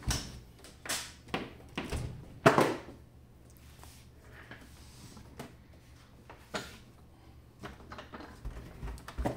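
Knocks and thumps from handling the Zimmer ATS 2000 tourniquet unit, a heavy plastic-cased machine, as it is gripped and shifted on a bench with its hoses and cables moving. The loudest thump comes about two and a half seconds in, and fainter knocks follow.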